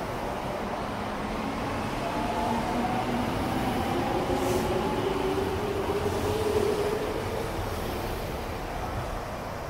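Semboku Rapid Railway 5000 series electric train pulling out past the platform, its traction motors whining in several rising tones as it gathers speed over the rumble of wheels on rail. The sound is loudest just before the last car passes, then eases off near the end.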